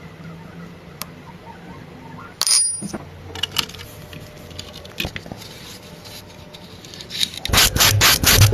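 Scattered sharp clicks and knocks, with a short loud clatter about two and a half seconds in, then a dense, loud run of rapid clattering knocks near the end.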